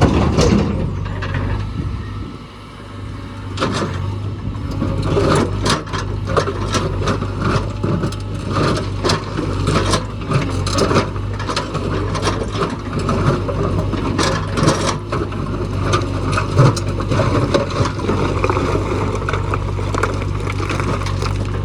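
Diesel engine of a JCB backhoe loader running steadily, with many irregular clanks and rattles of machinery working over it.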